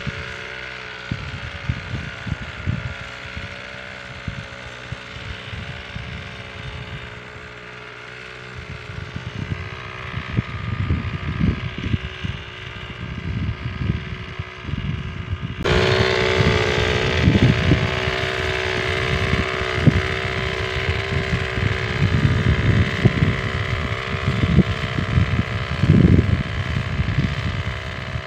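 Small engine of a motorized crop sprayer running steadily, with wind buffeting the microphone. About halfway through the engine sound suddenly becomes louder and brighter.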